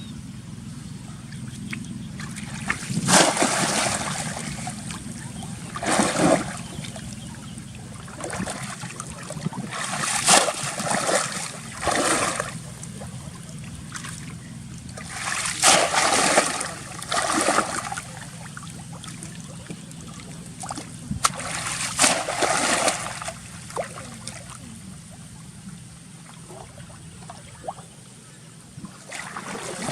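Water splashing in repeated bursts, one every two to four seconds, over a steady low hum.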